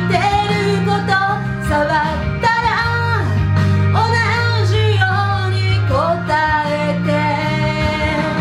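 A woman singing a Japanese pop song in long held notes with vibrato, over instrumental accompaniment with steady low notes.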